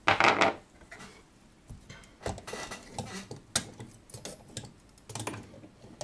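Metal clinks, knocks and rattles as a brass clock movement plate and the steel parts of a clock bushing machine are handled and set in place. A brief loud clatter comes at the start, followed by scattered sharp clicks.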